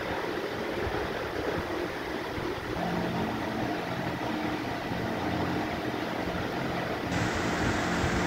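Steady mechanical hum with hiss. About three seconds in it takes on a steadier droning tone, and near the end a brighter hiss joins it.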